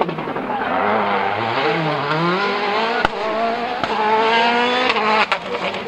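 A World Rally Car's turbocharged 1.6-litre four-cylinder engine at full rally pace. Its pitch drops, then climbs steadily for about three seconds and breaks off near the end, with two sharp cracks along the way.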